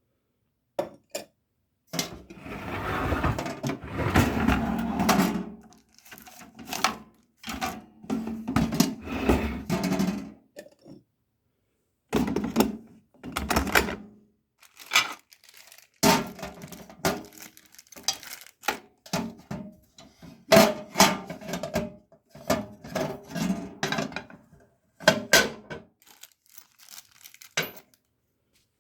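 Kitchen appliance parts being handled: repeated knocks, clinks and clatter of hard pieces set down and moved, with a longer noisy handling sound starting about two seconds in and lasting about four seconds.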